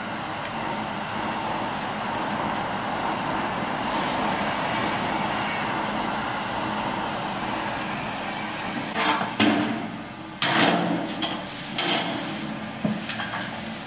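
String mop pushed and dragged over wet floor tiles, a steady wet scrubbing swish. From about nine seconds in, several louder slaps and knocks break in.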